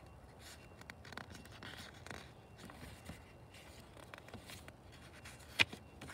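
Faint paper rustling and scraping as a picture-book page is handled and turned, with one sharp click near the end.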